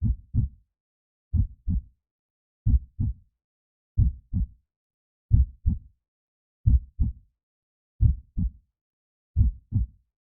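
Heartbeat sound: slow, steady double thumps ("lub-dub"), low and dull, about one beat every second and a third, with silence between beats.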